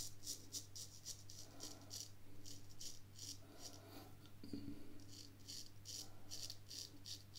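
Drew Dick 8/8 smiling straight razor shaving lathered neck stubble in short strokes: a faint, quick run of crisp rasps as the blade cuts the whiskers.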